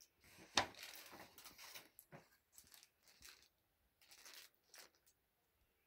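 Paper tearing and crinkling in a series of short bursts, the sharpest about half a second in: a present being unwrapped.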